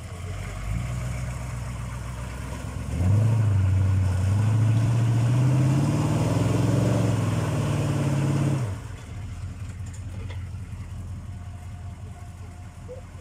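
K5 Blazer's 6.2-litre V8 diesel working hard under load as the truck climbs out of a mud hole. From about three seconds in it runs louder with its pitch rising for several seconds, then drops back abruptly near nine seconds to a quieter steady run.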